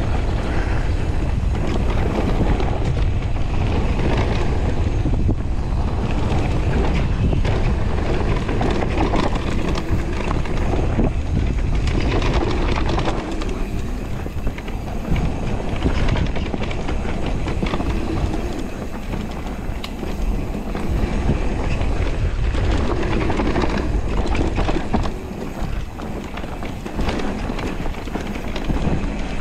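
Electric mountain bike riding down a dirt singletrack strewn with dry leaves: a continuous low rumble and rattle of the tyres and frame over the ground, with wind on the microphone.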